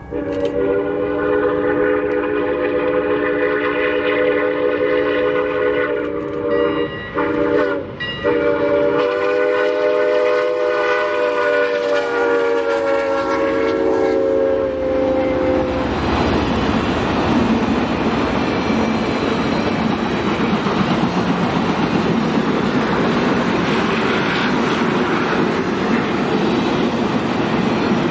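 Santa Fe 3751's chime steam whistle blowing as the steam locomotive approaches: one long chord-like blast, broken twice briefly about seven and eight seconds in, then held for another eight seconds. It stops as the engine passes, and the passenger cars take over, rolling by with a steady rumble and wheel clickety-clack.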